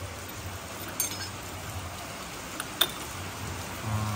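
A few light metal clinks of tools and parts as a Yamaha RX-King two-stroke engine is stripped down: one about a second in and two close together near three seconds in, the last the sharpest. Under them, a steady hiss of rain.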